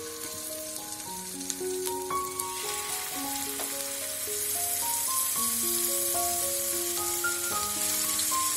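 Canned sardines frying in hot oil in a pan: a steady sizzle that grows louder about two and a half seconds in, with a couple of sharp pops early on, over light background music of held notes.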